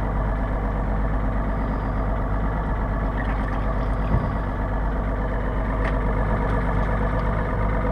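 A boat's motor idling steadily, with a small knock about four seconds in.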